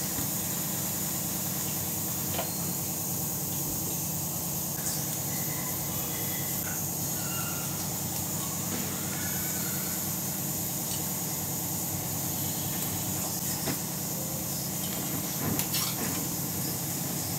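Gas stove burner flame running with a steady rushing hiss as a tomato chars directly over it on a wire-mesh grill, with a few faint clicks and crackles.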